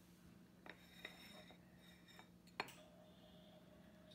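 Near silence with a faint steady hum, broken by a few light clicks of a glass mason jar against a ceramic plate. The sharpest click comes about two and a half seconds in.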